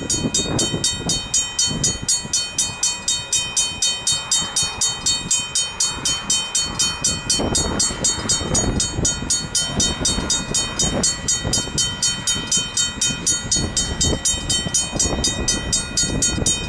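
Griswold mechanical level-crossing bells ringing continuously with fast, even strokes, about four a second: the crossing is activated, warning of an approaching train.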